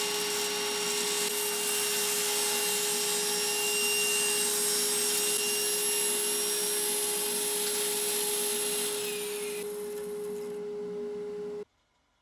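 Table saw running with its blade cutting through a small wooden block, a steady loud whine. About nine seconds in the sound drops and its high pitch slides down, then it cuts off abruptly near the end.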